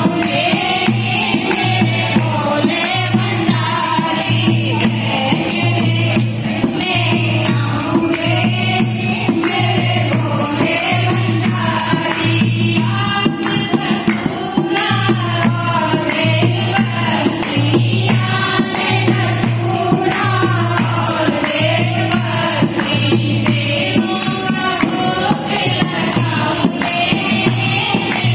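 Hindi devotional bhajan to Shiva: a young woman sings the lead into a microphone while a group of women sing along and clap in rhythm, over a steady beat of about one pulse a second.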